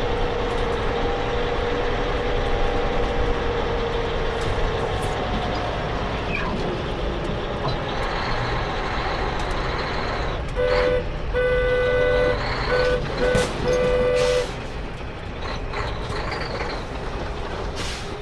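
A steady noisy vehicle-like rumble, with a string of five or six short electronic beeps on one pitch, like a reversing alarm, a little past halfway through.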